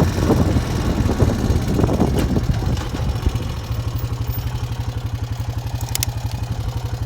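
A small vehicle engine running, which settles into an even idle with a regular throb about three and a half seconds in.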